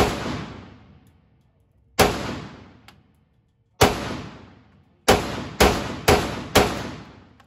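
Seven gunshots, each with an echoing tail: three spaced about two seconds apart, then four quicker shots about half a second apart near the end.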